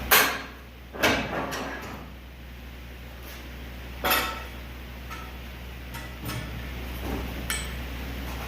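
Metal clanks and knocks, as a log is turned and clamped on a portable bandsaw mill's steel bed. There are three loud ones, at the start, about a second in and about four seconds in, with lighter taps between, over a steady low hum.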